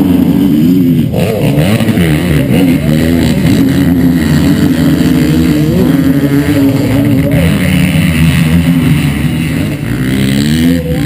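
Race quad's engine running at idle, its pitch wavering up and down throughout.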